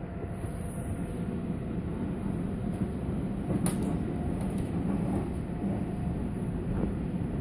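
Cabin running noise of a Bombardier C20 Stockholm metro train under way: a steady low rumble of wheels on rails, with one sharp click about halfway through.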